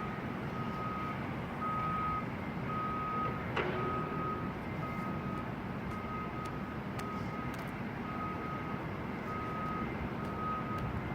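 A vehicle's reversing alarm beeping at a steady pitch, about once a second, over a low engine rumble. A single sharp knock comes about three and a half seconds in.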